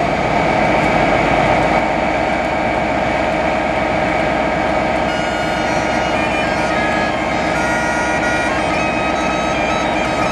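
Highland bagpipes playing: a steady drone at first, with the chanter's tune of changing notes coming in about halfway through. Underneath runs the low, steady rumble of a Class 57 diesel locomotive idling at the platform.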